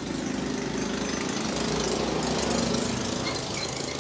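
A small motorbike engine running close by on the street, getting louder toward the middle and easing off near the end.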